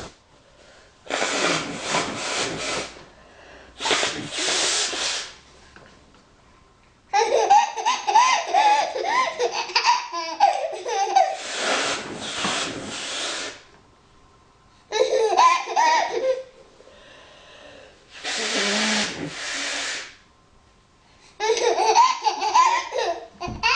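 A woman blowing her nose four times in loud, hissing blows of one to two seconds each. Between the blows a baby laughs in wavering giggles.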